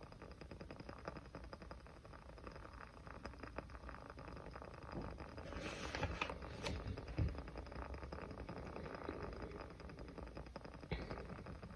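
Small wood fire crackling: a steady run of faint ticks and snaps, with a few louder pops about six to seven seconds in and another near the end.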